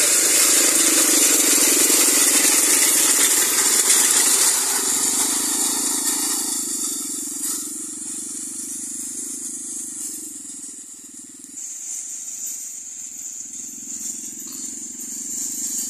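Small petrol engine of a tracked brush-cutter machine running steadily as it drives along. It is loud for about the first six seconds, then fainter as the machine moves off.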